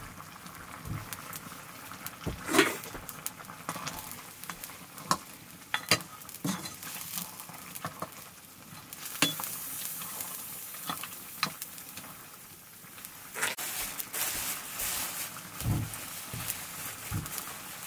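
Meat sizzling as it fries in a black two-handled kadai, with a metal ladle stirring and scraping it against the pan. Sharp knocks come now and then, the loudest about two and a half seconds in.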